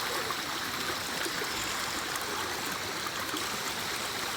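A small stream flowing with a steady rush of water.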